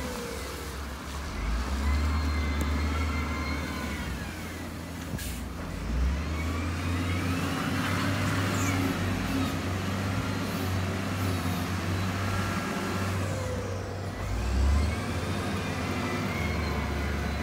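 Heavy diesel earthmoving machine running under load with a steady low rumble, the engine note swelling briefly about six seconds in and again near the end, over rising and falling whines.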